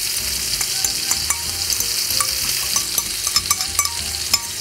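Lamb chops frying over high heat in olive oil: a steady sizzle with short spitting pops. A metal spoon scrapes and clicks against a ceramic bowl.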